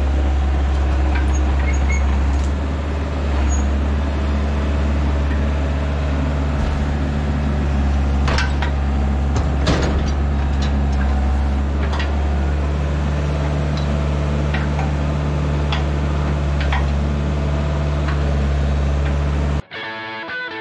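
Diesel excavator engine running steadily as the boom and thumb swing logs onto a dump truck, with a few sharp knocks of logs against the bucket and truck bed. It cuts off suddenly near the end, where guitar music begins.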